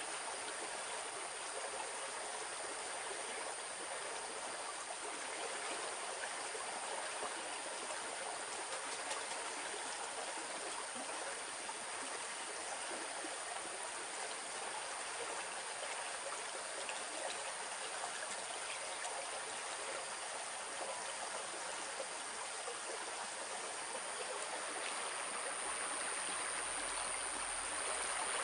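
Shallow stream flowing, a steady rush of water.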